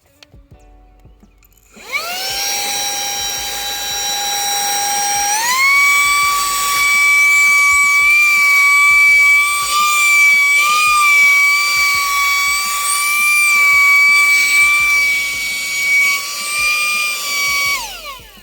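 Wyze handheld vacuum's motor switched on and spinning up to a high whine, the pitch stepping up a few seconds in, then running steadily while vacuuming a car seat's crevices. Near the end it is switched off and winds down with a falling whine.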